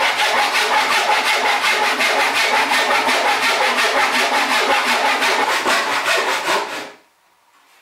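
Handsaw crosscutting a softwood board with rapid, even strokes that stop near the end.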